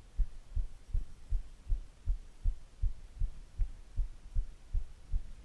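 Muffled low thumps in a steady rhythm, about two and a half a second.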